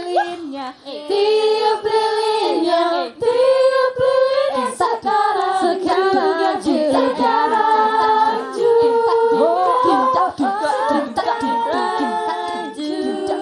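A group of young women's voices singing a birthday song together, unaccompanied, in held, swooping notes.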